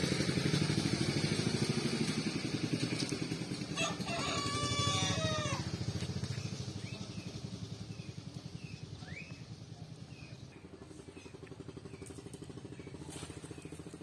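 A rooster crows once, about four seconds in, over the steady running of a small engine that fades away after about six seconds. Small bird chirps follow.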